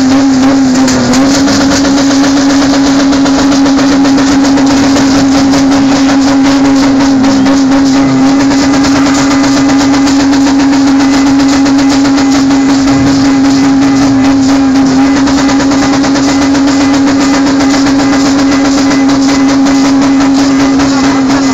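A car engine is held at steady high revs, loud through its exhaust, with a brief dip or two in pitch.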